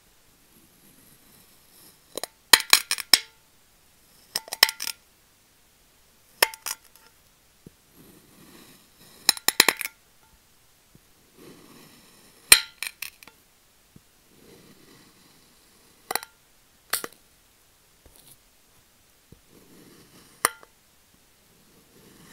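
Kitchen knife cutting through a block of kinetic sand with a soft gritty crunch, then the blade clinking against the glass plate beneath, which rings briefly. This repeats through a series of slices, the clinks sometimes coming in quick clusters of several taps.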